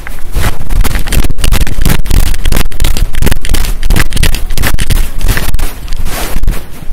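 Wind buffeting the microphone: a loud, rumbling, crackling noise that clips near full level.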